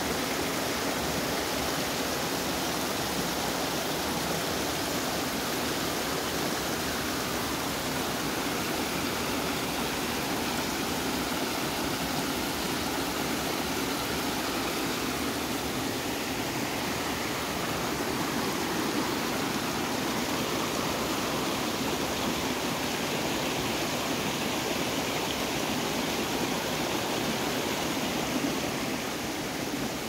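Mountain creek water flowing steadily over rocks.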